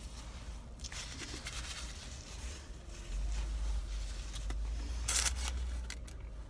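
Paper food wrapper crinkling and rustling in hand while a person eats and chews, with the loudest crinkle about five seconds in. A steady low rumble runs underneath.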